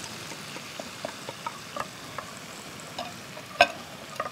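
Chopped-chili sauce sizzling and popping in a hot frying pan as it comes quickly to a boil, with a spatula stirring it. One sharper click stands out a little past three and a half seconds in.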